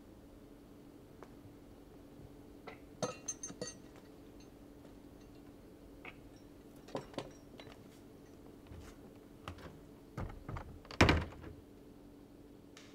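Scattered knocks and clicks over a steady low hum, with a cluster of bright clinks about three seconds in and a heavier thud about eleven seconds in.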